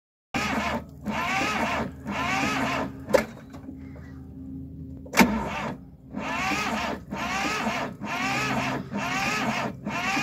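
Starter motor of a yellow construction machine that has stood unused for some twenty years, cranking the engine in short bursts of just under a second, about one a second, without it catching. A quieter stretch with two sharp clicks breaks the cranking near the middle.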